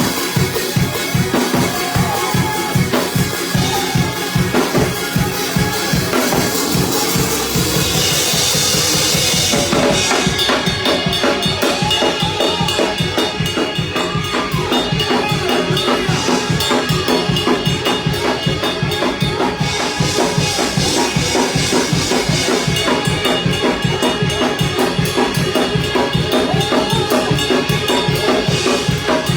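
Up-tempo church praise music driven by a drum kit, with bass drum and snare keeping a fast, steady beat of about four strokes a second. A cymbal wash builds about seven seconds in and falls away near ten seconds.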